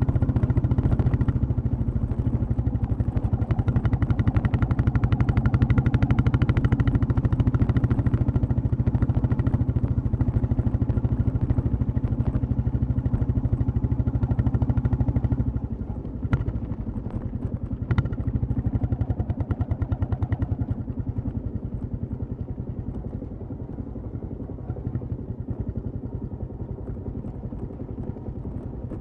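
Royal Enfield Classic 350's single-cylinder engine and exhaust running steadily under way. About halfway through it falls clearly quieter, with two sharp clicks about two seconds apart, and runs on at the lower level.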